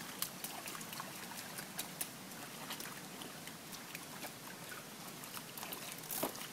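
Light rain falling: a steady hiss with scattered ticks of drops landing.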